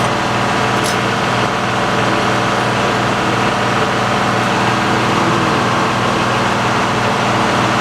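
Frick sawmill's power unit and drive running steadily at a constant speed, with the circular saw blade spinning.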